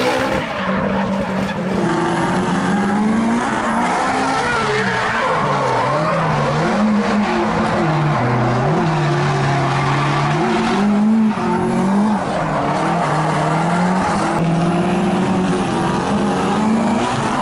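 Drift car engines revving up and down, the pitch swinging every second or two as the throttle is worked through the slides, over the screech of sliding tyres.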